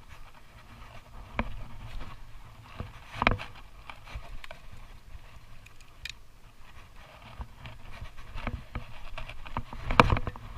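Scattered knocks and rustling over a low rumble, with the loudest knocks about three seconds in and near the end.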